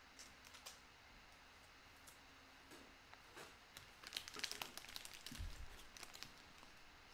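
Faint crinkling and light clicks of trading cards and plastic being handled. They are busiest about four to five seconds in, with a short low thump just after.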